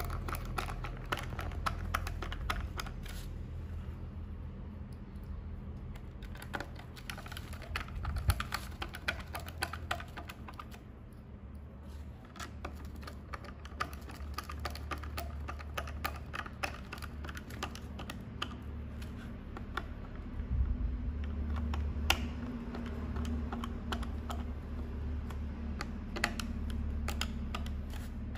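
Precision screwdriver driving small M2 screws into a plastic servo cover on a foam airframe: many small irregular clicks and ticks of the tip and screws against the plastic, over a steady low hum.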